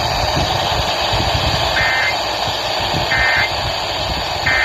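Three short bursts of Emergency Alert System end-of-message data tones, a warbling two-pitch digital chirp repeated about a second and a half apart, over steady radio static. The bursts mark the end of the alert broadcast.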